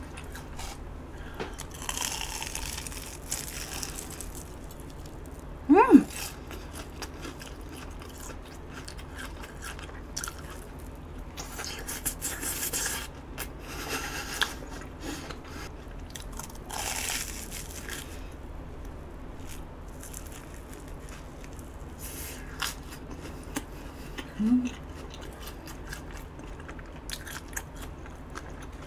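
Close-up eating sounds of a batter-fried Korean hot dog (corn dog) being bitten and chewed: crunchy bites of the fried crust and chewing, coming in several separate bouts. A short, sharp rising sound about six seconds in is the loudest moment.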